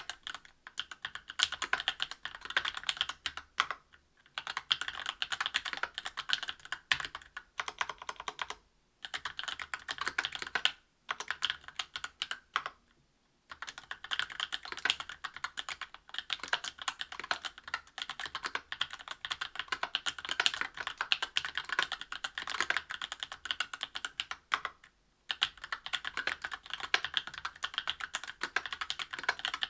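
Typing on a mechanical keyboard with lubed Tecsee Oreo 63.5 g linear switches on an aluminium plate under GMK keycaps: fast, continuous keystrokes broken by a few short pauses.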